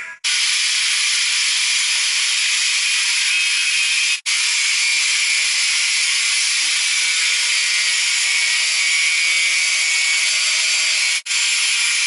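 A loud, steady hiss that breaks off for an instant twice, about four seconds in and again near the end.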